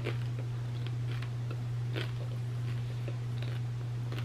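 Mouth chewing and crunching on hard-shell tacos, with small scattered crunches, over a steady low hum.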